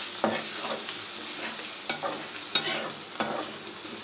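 Browned onions and ginger-garlic paste sizzling in hot oil in a pan, stirred with several scraping strokes against the pan, the loudest about two and a half seconds in.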